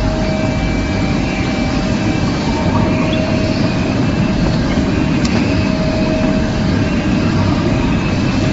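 Steady low rumble of a moving vehicle, with a constant whine running through it.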